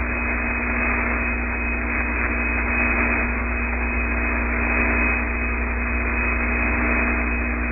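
Steady static hiss and low hum on an open spacecraft-to-ground radio link, with no one talking.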